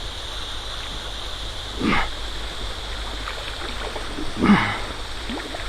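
River water rushing steadily, with two short, louder sounds about two seconds and four and a half seconds in.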